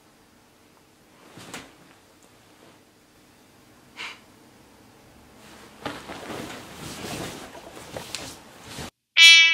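A person's two short breaths, about a second and a half in and again about four seconds in, then a few seconds of duvet and bedding rustling as he sits up in bed. Music starts loudly right at the end.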